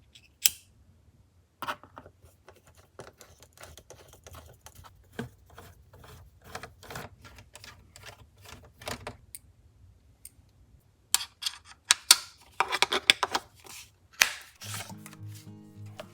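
Small clicks and rattles from handling a precision screwdriver kit, its case and bits, sparse at first and busiest about three-quarters of the way through. Background music comes in near the end.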